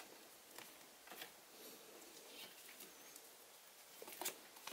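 Near silence with a few faint taps and clicks of trading cards being handled and set down on a table, a couple about a second in and two more near the end.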